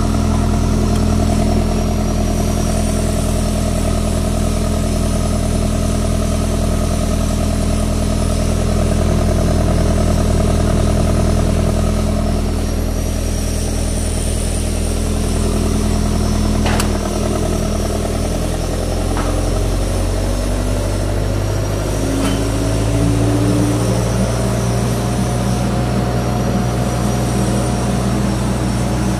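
Powercity diesel generator set running steadily while being tested on a load bank. About 17 seconds in there is a sharp click, then a tone in the machine sound rises over several seconds and levels off.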